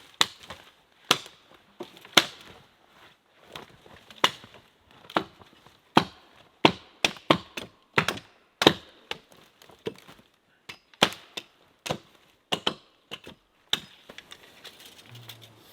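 Repeated sharp knocks of wood being struck, irregularly spaced at roughly one or two a second, some coming in quick pairs.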